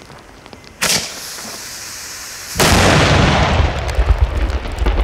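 A 500 g cipolla, a homemade flash-powder ground salute, going off: a sharp crack about a second in and a steady hiss, then a huge blast a little over two and a half seconds in, followed by a deep rumbling echo that rolls on.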